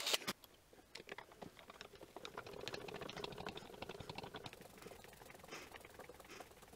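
A cordless drill cuts off at the very start. Then comes faint, rapid, irregular clicking and ticking from a hand screwdriver driving machine screws to fasten a motor to a plywood end plate.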